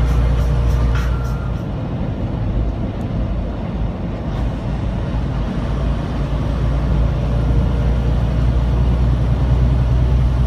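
Semi truck's engine and road noise: a steady low drone.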